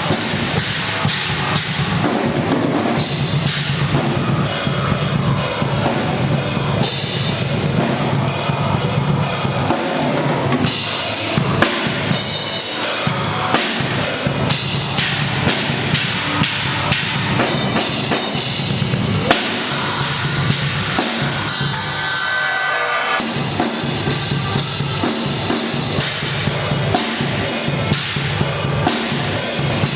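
Heavy metal music with a loud drum kit pounding out a fast, steady beat of bass drum, snare and cymbals.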